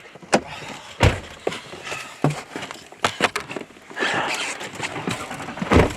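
Knocks, scuffs and clothing rustle as people move about and climb into a truck, with two heavy thuds, one about a second in and one just before the end.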